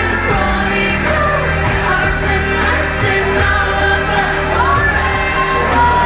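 Ukrainian pop song with a female lead singing over a chorus of backing vocals and a heavy bass beat, moving into a held note near the end.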